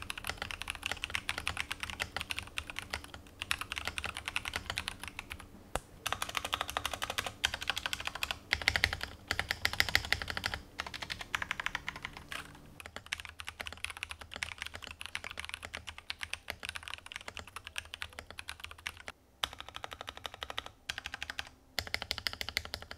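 Typing test on a Rexus Daxa M64 Ultimate mechanical keyboard: fast, continuous keystrokes on pre-lubed switches in a polycarbonate plate with foam dampening and Cherry-profile PBT keycaps. The typing breaks off briefly a few times.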